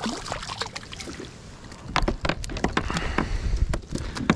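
Irregular clicks and knocks from about two seconds in, as a sabiki rig with a hooked mackerel is reeled up and handled over a plastic kayak, over a low steady rumble.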